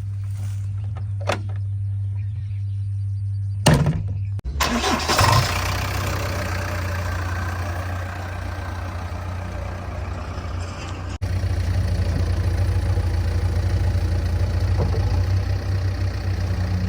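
Diesel engine of a backhoe loader or tractor running steadily, with a sharp knock about four seconds in followed by several seconds of heavier noise over the engine; a little after the middle the engine sound becomes louder and steady.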